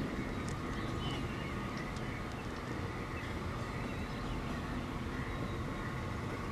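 Steady rumble of a passing diesel-hauled passenger train, with a few faint, short, high clicks and squeaks over it.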